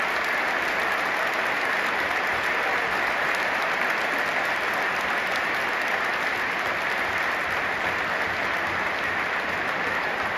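Large stadium crowd applauding, a dense, steady wash of clapping from thousands of spectators.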